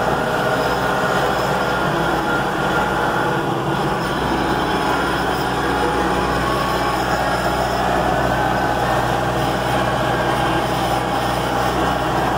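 A vehicle driving across a farm field, heard from inside the cab: a steady engine drone with the rattle of the body over the ground.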